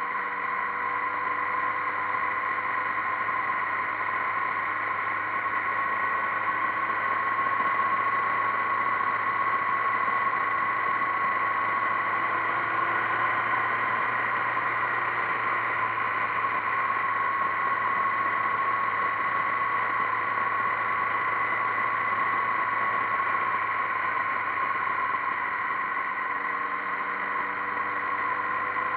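Motorcycle cruising at a steady speed, heard from a camera mounted on the bike: a steady engine note under constant wind and road noise.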